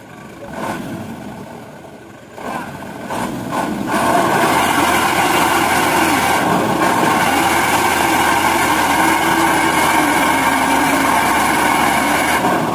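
Mitsubishi Canter HD dump truck's diesel engine revving hard and held at high revs under load for about eight seconds as the stuck truck strains to pull out of a muddy ditch, then easing off near the end. A few short knocks come before it.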